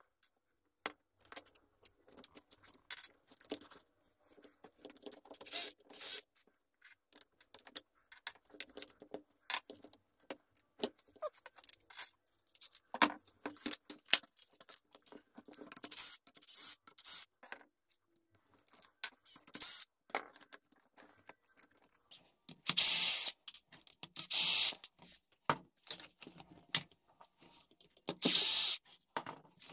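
Scattered clicks and clatter of plastic RC-truck chassis parts and loose screws being handled. Near the end a Bosch cordless drill-driver runs in three short bursts with a high motor whine, backing out chassis screws.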